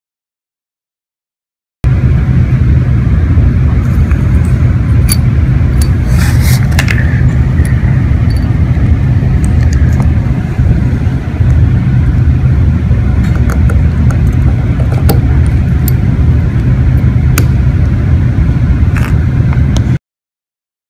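A vehicle running with a steady, loud low rumble, with scattered light clicks and a brief rattle about six seconds in.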